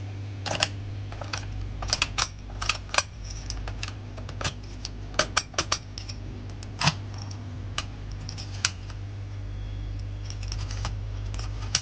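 Die-cast zinc alloy RV door lock being unlocked and worked by hand: irregular sharp metallic clicks and clacks from the key turning in the barrels and the deadbolts and latch moving, over a steady low hum.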